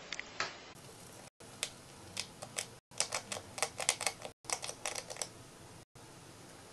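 A hamster biting and tugging at a piece of dry toast, making a rapid run of crisp crunching clicks in bunches that stop about five seconds in.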